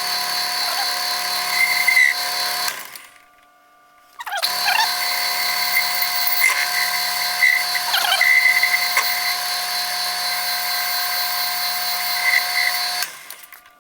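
Metal lathe running, turning down aluminum stock with a steady whine over a hiss. It stops about three seconds in, starts again about a second later and runs until shortly before the end.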